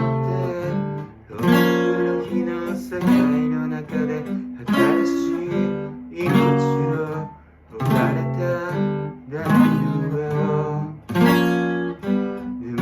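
Acoustic guitar strummed, a full chord struck about every one and a half seconds with lighter plucked notes ringing between.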